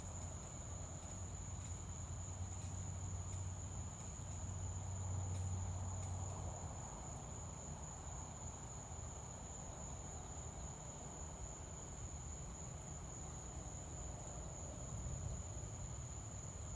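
Steady high-pitched chorus of night insects, crickets, trilling without a break. Under it, a low rumble is strongest in the first several seconds and swells about five seconds in.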